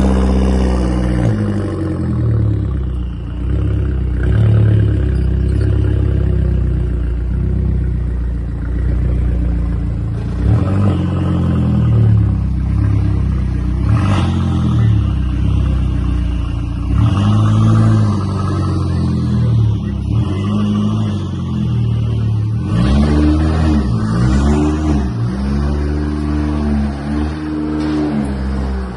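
Big-turbo Fiat 500 Abarth's 1.4-litre turbocharged four-cylinder, breathing through a catless downpipe and a single Magnaflow muffler with half its packing removed, running loud with long steady stretches and rises and falls in revs. Several quick rev blips rise and fall in pitch in the last third.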